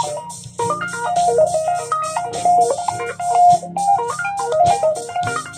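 Clean-toned electric guitar played with two-handed tapping: quick runs of single notes in a major key, with a steady low layer and an even, fast ticking beat behind them.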